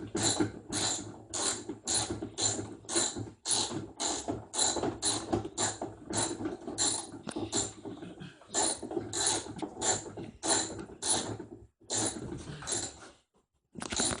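Ratchet wrench with an 11 mm socket clicking in a quick run of strokes, about three a second, as a bolt inside a top-load washing machine is tightened. The clicking breaks off briefly near the middle and again near the end.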